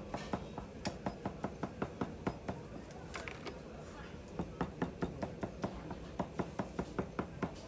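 Cleaver chopping stewed pork offal on a thick wooden chopping block in quick, even strokes, about five a second. The chopping pauses for about a second near the middle, then starts again.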